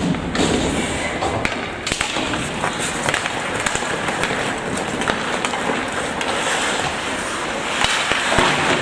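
Ice hockey rink ambience: a steady hiss of skates and arena noise with scattered sharp clicks of sticks and puck on the ice.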